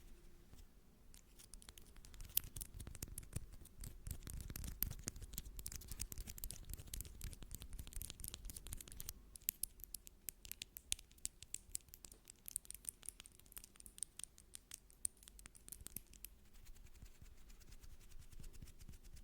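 ASMR scratching trigger: quick, fine scratching on an object's surface, a dense crackle of small clicks that thins out and grows fainter near the end.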